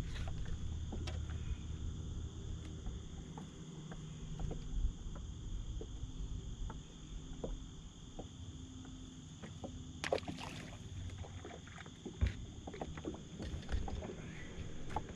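Low rumble of wind and water against a small aluminum fishing boat, with scattered knocks and clatter on the hull as a pickerel is brought aboard and handled; the sharpest knock comes right at the start, with a cluster about ten seconds in.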